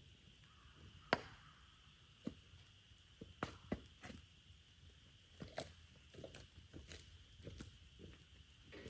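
Irregular sharp knocks and clacks of someone working on foot in thick mud, footsteps and gear being handled, about a dozen spread unevenly, the loudest about a second in. A faint steady high-pitched hum runs underneath.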